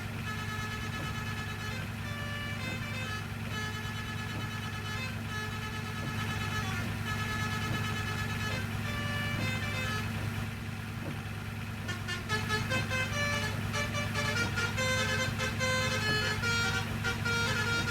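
Bus basuri telolet horn playing a fast melody of stepped notes over a steady low hum, the tune getting denser and louder about two-thirds of the way through.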